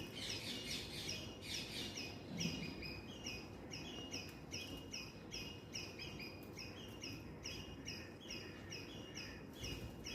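A bird chirping: short, high, slightly falling chirps repeated steadily at about two a second.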